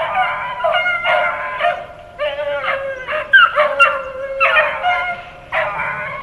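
Beagles baying on a rabbit's trail: drawn-out, wavering bays in about five bouts, with voices sometimes overlapping.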